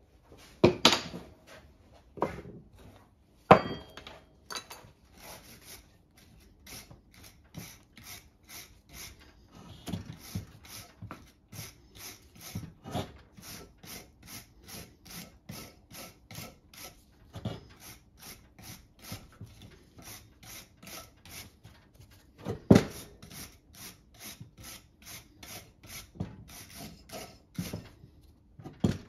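Hand file rasping back and forth on the steel bearing retaining ring of a Chrysler 8 3/4 axle shaft, about two strokes a second. A few loud knocks of the axle on the bench come in the first few seconds and once more later.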